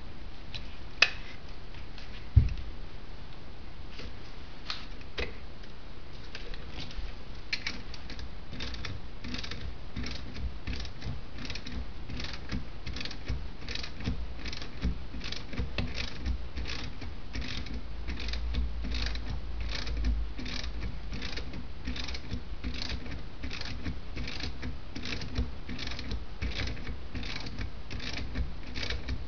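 Ratchet wrench clicking steadily, about two clicks a second, as a nut on a Jaguar E-Type brake servo assembly is turned. Two sharp knocks come near the start.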